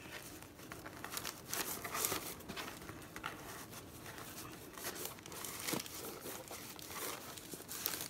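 Hands untying a fabric ribbon bow on a paper-wrapped gift box: irregular rustling and crinkling of ribbon and wrapping paper.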